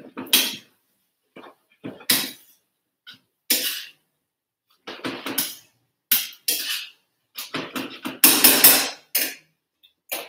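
A kitchen utensil clanking and scraping against a frying pan as spaghetti is tossed in marinara sauce, in a string of short irregular clatters, the loudest run about eight seconds in.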